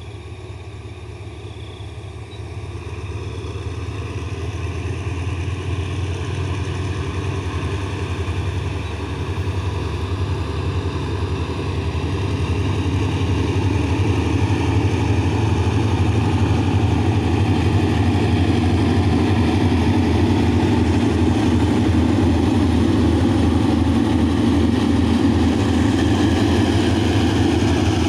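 Diesel locomotive approaching with a train of coaches. Its engine rumble and throb grow steadily louder over the first dozen seconds, then stay loud and level as it passes.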